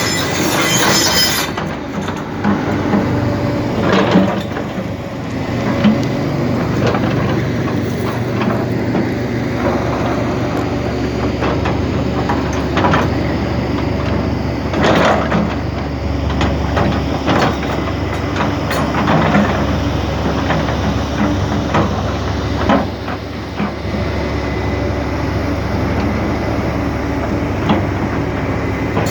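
Hyundai excavator at work: its diesel engine runs steadily with a low drone, and sharp metallic clanks and knocks come every few seconds, the loudest about 4 and 15 seconds in.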